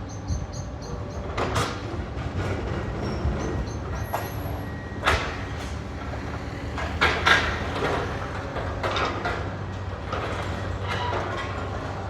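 Heavy demolition machinery running with a steady low engine drone, broken by irregular knocks and crashes of rubble as the last of a building is pulled down. The loudest crashes come around the middle of the clip.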